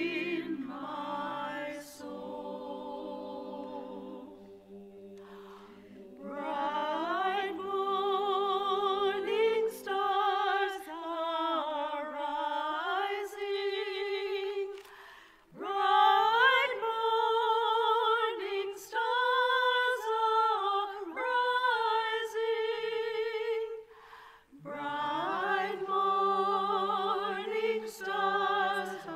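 Unaccompanied singing: a slow melody with strong vibrato, sung in phrases with short breaks about five seconds in and again near the end.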